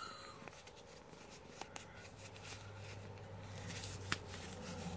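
Folded paper leaflet being handled and unfolded close to the microphone: faint rustling and crinkling with a few scattered small clicks. A low steady hum comes in about halfway through.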